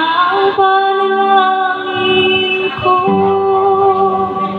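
A woman singing with a small live band, her voice amplified through a PA. She slides up into a long held note, then moves to a second held note about three seconds in, with the band playing underneath.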